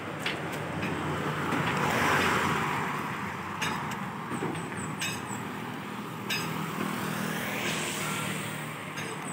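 Road traffic passing on a highway: a vehicle goes by, loudest about two seconds in, and another approaches near the end. A few sharp clinks sound in between.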